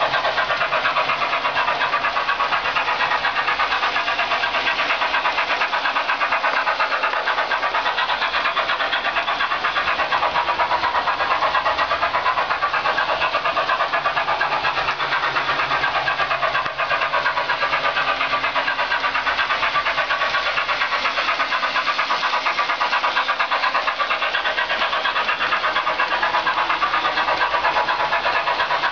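Märklin BR 10 model steam locomotive running steadily, its onboard sound decoder playing steam-engine chuffing through a small speaker at a fast, even rhythm.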